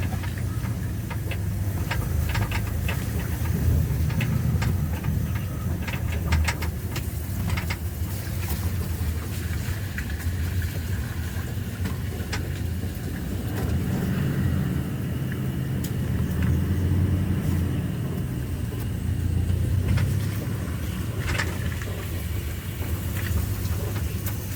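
A vehicle engine running steadily at low speed along a rough road, with scattered short knocks and rattles.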